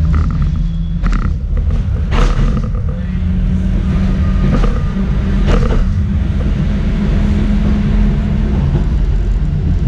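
Schindler Waggon Be 4/6 tram heard from inside the passenger saloon while it runs along the track: a steady low rumble with a hum from the running gear, and several sharp knocks, the loudest about two seconds in.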